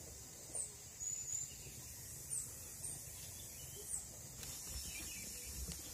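Faint outdoor ambience: small birds giving several brief, very high chirps over a steady high hiss, with a few low bumps near the end.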